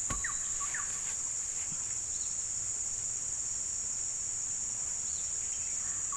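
Steady, high-pitched insect chorus of crickets or similar insects, with a few short high chirps scattered through it.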